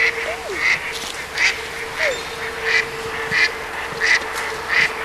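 Mallard ducks quacking: a steady, regular series of harsh quacks about every two-thirds of a second, with a few shorter falling calls among them, over a steady faint hum.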